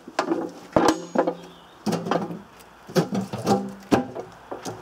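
Rusty steel ammunition box being closed and handled: the hinged lid swings down and knocks shut, with a series of sharp metal knocks and clanks, some ringing briefly.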